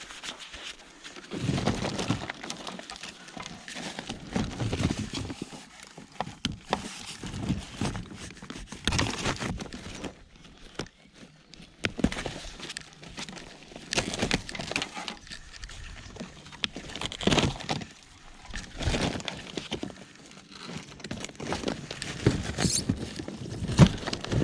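Irregular clattering, scraping and crunching of rubble and scrap being shifted about by hand in a skip, in uneven bursts with short pauses between.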